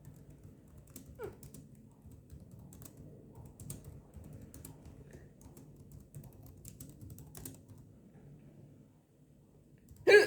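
A woman's hiccup, a single short sharp sound near the end, over soft scattered tapping clicks like typing on a keyboard.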